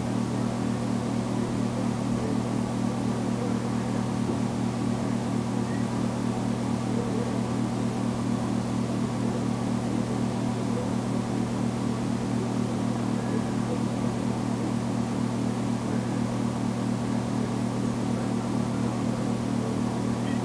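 A steady low hum that stays the same throughout, with no clear animal calls over it.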